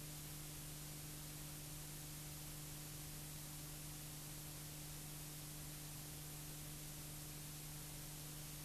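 Steady hiss with a constant low electrical hum, unchanging throughout: background noise of the transfer rather than any sound of the racing.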